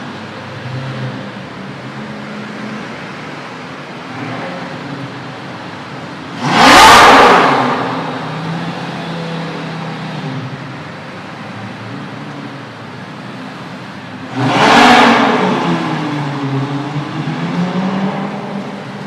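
Supercar engine idling and revved hard twice, about eight seconds apart. Each rev jumps up suddenly, then winds back down to idle over a second or two.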